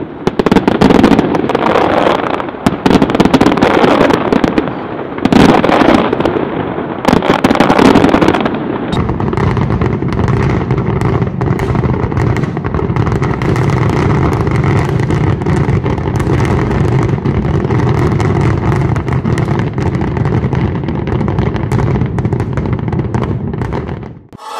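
Fireworks display: shells bursting in rapid, overlapping bangs with crackle. About a third of the way in, the sound changes to a denser, steadier run of low booms and crackling, which cuts off abruptly just before the end.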